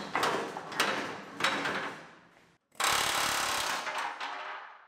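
Rusty steel frame rail being wiggled loose from an old car body: four sharp metal clanks and knocks in the first second and a half, then after a short break a steady grating noise that fades away.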